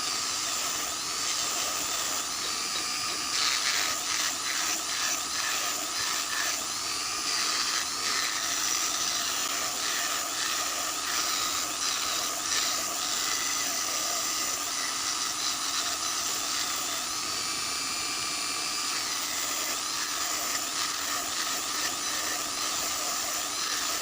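Small high-speed electric power tool running continuously on the work, with a steady whine whose high pitch dips and recovers as it is pressed and eased, and a scratchy grinding noise throughout.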